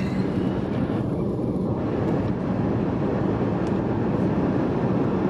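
Steady road noise inside a moving car: an even rumble of tyres and engine.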